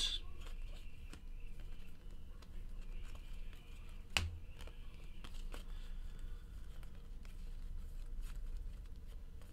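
Trading cards being flipped through by hand: faint sliding and rustling of card stock, with a sharp click about four seconds in, over a low steady hum.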